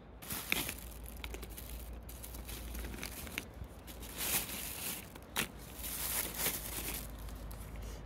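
Crinkling and scratchy rustling of painting materials handled close to the microphone, including a crumpled metal paint tube being squeezed, in a string of bursts with a few sharp clicks, easing off near the end.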